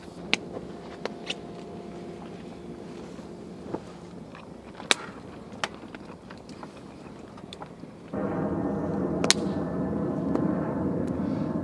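Knives and forks clinking and scraping on plates, a handful of sharp clinks over a quiet background. About eight seconds in, the steady drone of an aircraft overhead comes in suddenly and becomes the loudest sound.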